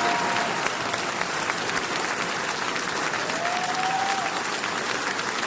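Large audience applauding steadily, with a thin held tone rising slightly about three seconds in.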